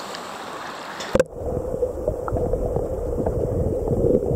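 Stream water rushing, then about a second in the microphone goes underwater and the sound turns muffled: the current's rush and gurgle heard from below the surface, with small ticks and knocks from water and gravel.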